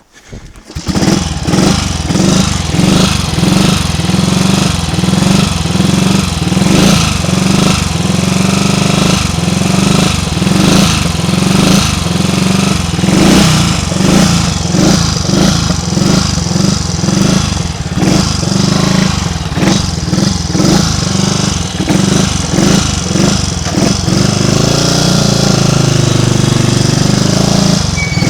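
Triumph Tiger Cub's 199 cc single-cylinder four-stroke engine running loud, coming in suddenly about a second in, its note pulsing unevenly. The bike is troubled by a misfire and has been stalling under load.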